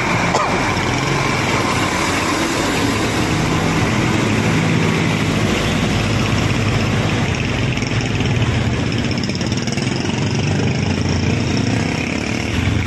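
Close-range traffic: a large truck's engine running with a steady low drone, along with motorcycle engines passing in slow traffic.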